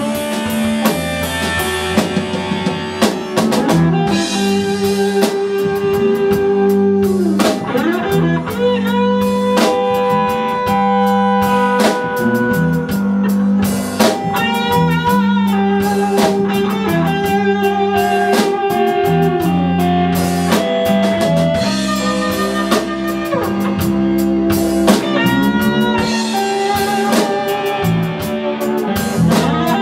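Live band playing a blues number: electric guitar lead with held, bent notes over a Pearl drum kit and a steady low bass line.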